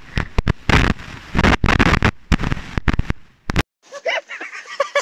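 Irregular, loud bursts of air blasting a clip-on microphone, over a faint river rush. The sound drops out briefly about three and a half seconds in.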